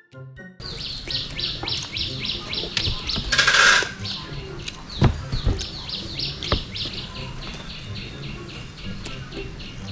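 Rapid bird-like chirping: a steady train of short, high, falling chirps, about five a second. A short burst of noise comes about three and a half seconds in, and a few sharp knocks between five and six and a half seconds.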